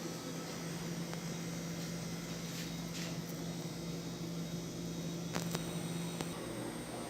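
Electrolux ME41X microwave oven running with a steady low hum, which stops about six seconds in, shortly after a couple of sharp clicks.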